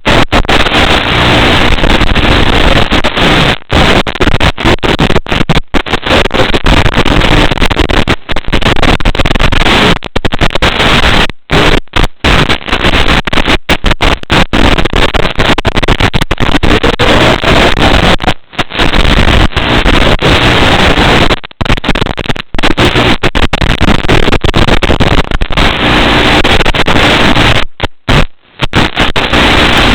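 Loud, rough rushing noise from an FPV racing drone's flight recording, broken by frequent brief dropouts to silence.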